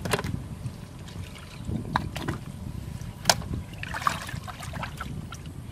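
Hands sloshing and scooping through shallow muddy water as they grab at trapped fish, with a few sharp slaps and splashes, the loudest about three seconds in.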